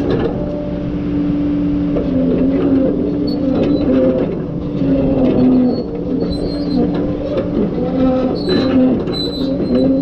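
Tigercat knuckleboom loader's diesel engine running steadily as the machine travels slowly, with a few short high squeaks.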